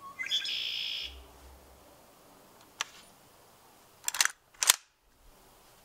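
A short hiss for about a second, then handling sounds of a WE PMC AK gas blowback airsoft rifle: a faint click, and about four seconds in a quick metallic rattle followed by one sharp clack.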